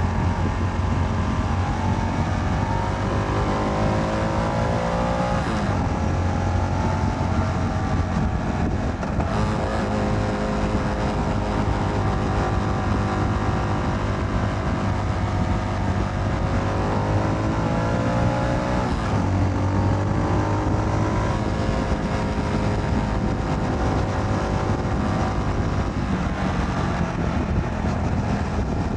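A motorcycle engine under way, its revs climbing and then dropping at a gear change about five seconds in and again near nineteen seconds, holding steady in between, with a steady rush of wind noise.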